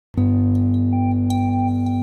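Background music: sustained synthesizer-style chords starting abruptly just after the start, with a higher melody note coming in about a second in.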